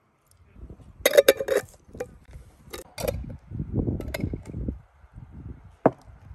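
Glass jars clinking and knocking on a table as they are picked up and handled: a quick run of sharp clinks about a second in, a few more around three seconds, duller handling noise after, and one single clink near the end.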